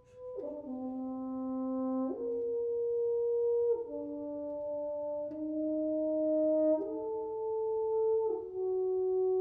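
Trio of French horns playing slow sustained chords together. The chord changes about every second and a half.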